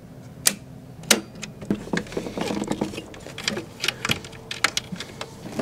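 Circuit-breaker switches in a small consumer unit being flipped off, two sharp clicks in the first second or so. Then a run of lighter clicks and rattles as fingers handle the breakers and a thin sensor cable inside the unit.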